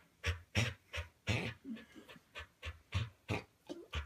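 Dog panting rapidly and rhythmically, about three breaths a second.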